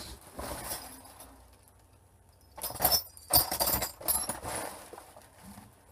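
Small pieces of scrap brass stripped from electrical plugs clinking and jangling together in a sack as it is handled, in a few short bursts.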